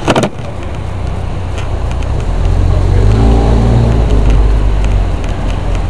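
A motor vehicle engine rumbling low, swelling louder from about two seconds in and easing off again near the end, after a couple of sharp knocks at the start.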